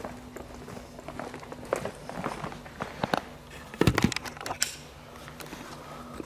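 Irregular knocks, clicks and crunching, with the loudest thuds about four seconds in, over a faint steady hum.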